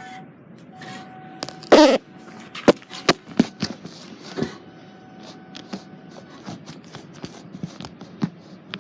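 Vending machine keypad buttons being pressed in a sequence, a string of separate sharp clicks at an irregular pace, with one brief loud noisy burst just under two seconds in.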